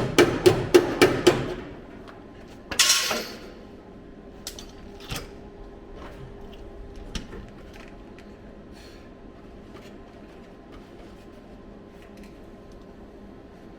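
A hammer striking a steel body panel, a quick run of ringing blows about four a second. About three seconds in comes a short loud hissing burst, then a few light clicks over a faint steady hum.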